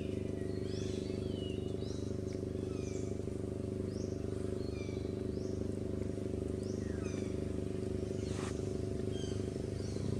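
Steady low engine-like hum running throughout, with many short, quick bird chirps over it. There is one brief click a little past eight seconds in.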